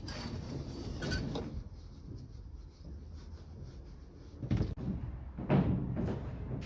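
Knocks and thumps from a Combi-Camp Venezia trailer tent being put up, with rustling between them; the loudest two come a little past halfway and about a second later.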